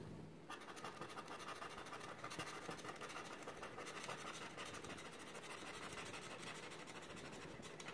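A small metal scratcher scraping the coating off a scratch-off lottery ticket in quick repeated strokes, a faint steady rasp that starts about half a second in.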